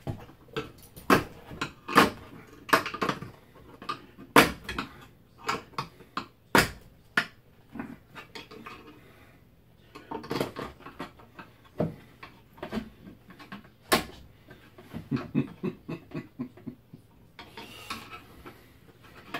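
Metal clinking, knocking and scraping as a screwdriver pushed through the pull ring of a sealed metal ammunition tin is levered and twisted to tear its rip-off top open. The knocks come irregularly, with quieter stretches between.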